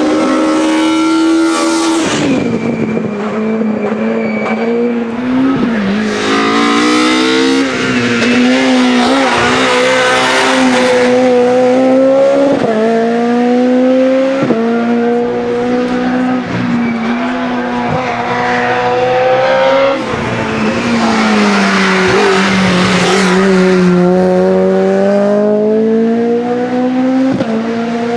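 Mercedes C200 S2000 touring car's two-litre naturally aspirated racing engine at full throttle, climbing in pitch through the gears with a sharp drop at each upshift. Near the middle it falls away and picks up again more slowly, as the car slows and accelerates out of a bend.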